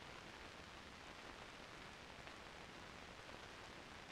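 Near silence: a faint, steady hiss from an old film soundtrack.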